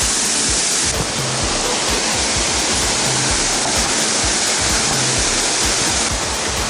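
Water pouring over a dam spillway in a steady rushing waterfall, with low rumbling underneath.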